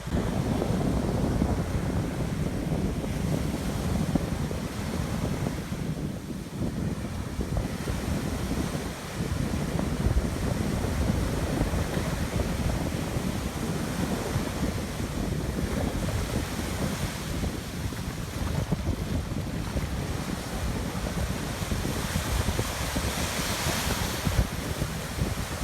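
Ocean surf washing onto a sandy beach, with wind buffeting the microphone. A brighter hiss of a wave running up the sand comes near the end.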